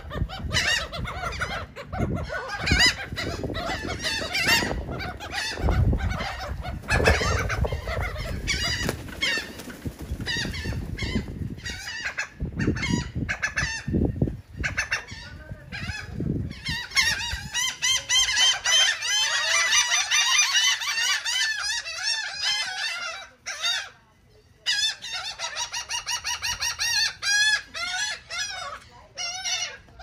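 A flock of laughing gulls calling with harsh, repeated cries, growing into a dense, almost continuous chorus over the second half, with a short break about three-quarters of the way through. Low thumps sound through the first half.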